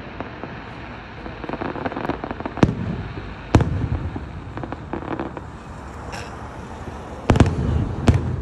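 Aerial fireworks bursting: a handful of sharp bangs with crackling between them, the loudest a close pair near the end.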